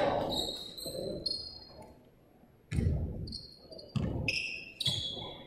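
Basketball bouncing on a hardwood gym floor, three bounces in the second half, with several short, high sneaker squeaks on the floor. Crowd cheering fades away at the start.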